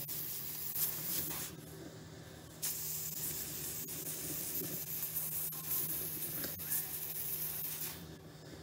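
CryoIQ PRO cryo pen with a D3 tip hissing as it sprays freezing gas onto a skin mass. The hiss stops about a second and a half in, starts again a second later and cuts off near the end.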